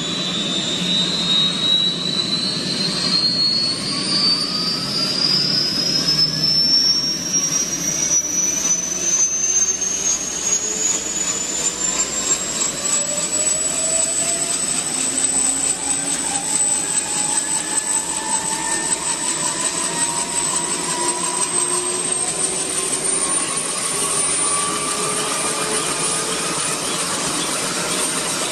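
Kaman K-MAX helicopter's turbine engine and intermeshing rotors running: a steady rushing noise under a high whine. The whine rises in pitch over the first dozen seconds, then holds, stepping up slightly a few seconds before the end.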